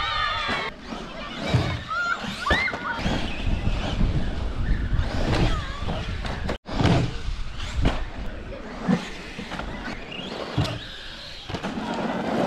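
Electric radio-controlled monster truck driving and jumping a ramp, its motor whining in short rising revs, with wind buffeting the microphone and children's voices in the background.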